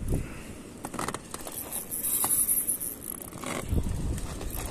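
Tsurinoya spinning reel whirring and zipping as line is worked against a hooked fish, strongest in the middle. A low rumble comes in near the end.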